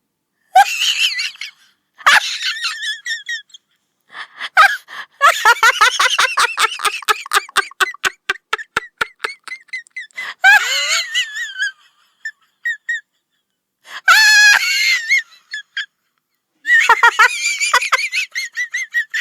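High-pitched, squeaky laughter sound effects played one after another, in separate bursts with short silences between them. Near the middle comes a fast run of giggling pulses, several a second.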